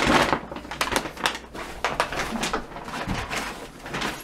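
Irregular rustling, crinkling and knocking of a delivery package being handled as items are dug out of it.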